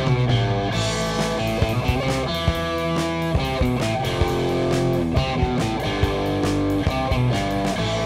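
A live rock trio playing an instrumental passage: electric guitar carrying the melody over bass guitar and a drum kit, with regular drum and cymbal hits.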